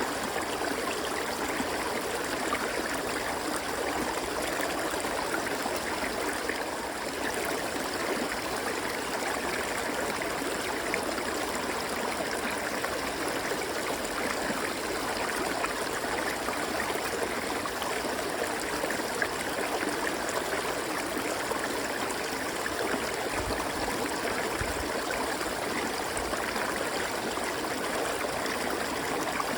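River water flowing steadily over rocks, an even rushing and burbling.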